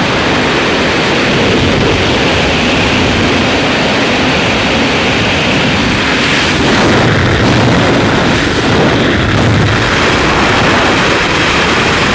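Loud, steady wind rushing and buffeting over the microphone, with a deeper rumble coming in from about halfway through.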